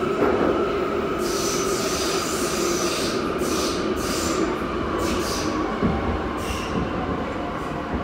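Modernized Metrovagonmash 81-717/714 metro train running through a tunnel, heard from inside the passenger car: a steady rumble with a high steady tone over it, and bursts of hiss coming and going from about a second in.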